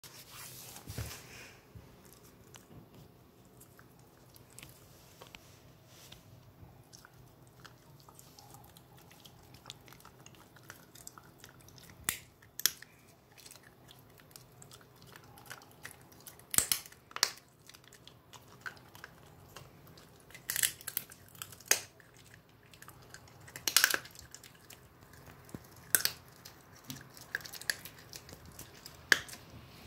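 A dog chewing and crunching a bone, with sharp irregular cracks every second or two, louder and more frequent in the second half.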